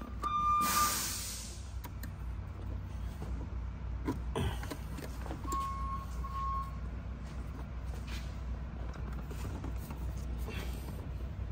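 Filter pliers gripping and working at a stuck spin-on oil filter: a few faint clicks and scrapes over a steady low workshop hum. A beep cuts off right at the start, a short hiss follows, and two brief beeps sound about six seconds in.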